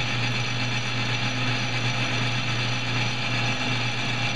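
Metal lathe running steadily with the power feed engaged, a constant low hum with even machine noise above it, while the tool takes a light truing pass across the end of a Delrin plastic workpiece.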